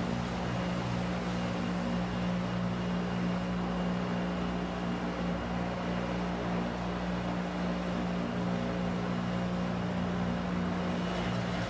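Concrete pipe plant machinery running with a steady, low, pitched hum over a constant mechanical noise.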